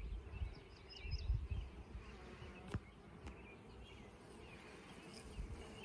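Honey bees buzzing around an opened nuc box as a comb frame is worked loose and lifted out. Low handling bumps come about a second in, and one sharp click of wood or the hive tool comes near the middle.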